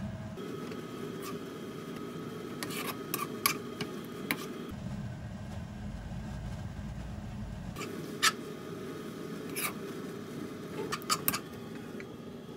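Spoons stirring and scraping shredded dried squid through thick gochujang sauce in a wok, with scattered sharp clicks of the spoon against the pan.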